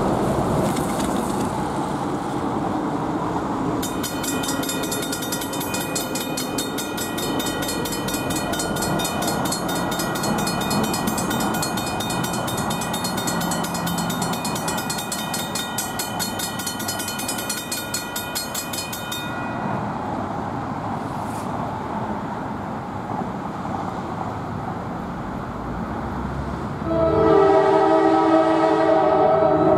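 Railroad grade-crossing bell ringing rapidly for about fifteen seconds while the crossing gates come down, then stopping. About three seconds before the end, the approaching Norfolk Southern GP38-2 locomotive's multi-note air horn starts blowing loudly, signalling for the crossing.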